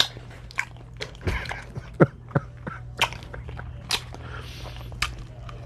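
Eating Dungeness crab close to the microphone: irregular sharp clicks and wet smacks of chewing and handling the shell, over a steady low hum.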